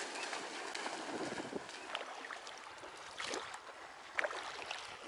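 Water sloshing with wind on the microphone, broken by a few short clicks.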